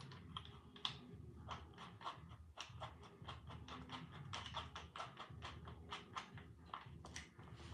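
Light, irregular clicks and taps, about three or four a second, as tools and small plastic parts of a string trimmer are handled during disassembly; no drill motor is running.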